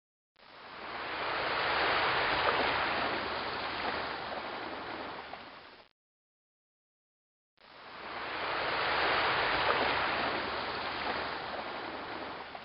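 Looped rushing-water sound effect: a swell of water noise fades up and back down over about five seconds, breaks off into dead silence, then the same swell repeats.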